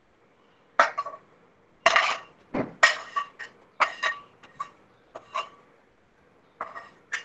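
Spatula scraping and knocking against a nonstick pan as upma is scooped out into a bowl: a series of about a dozen sharp knocks and scrapes, each with a brief metallic ring, the loudest a few seconds in.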